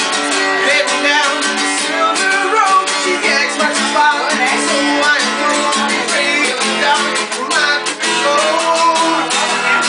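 Acoustic guitar being strummed, with a man singing over it.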